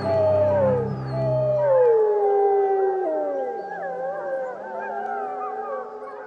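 A pack of wolves howling together: several long, overlapping howls, most sliding down in pitch. A low drone underneath fades out about two seconds in.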